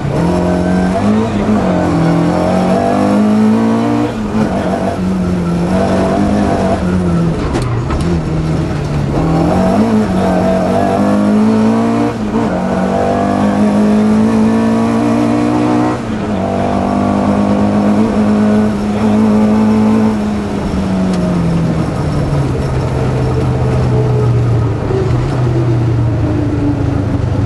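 Ford historic rally car's engine, heard from inside the cabin, revving hard and dropping back again and again through gear changes and lifts. About two-thirds of the way in it falls to lower revs for a stretch before picking up again.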